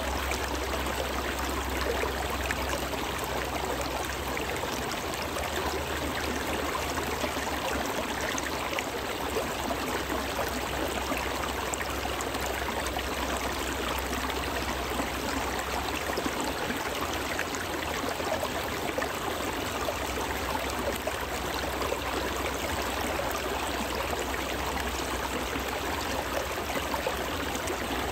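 Shallow winter stream flowing steadily over stones between edges of ice: an even, unbroken rush of running water.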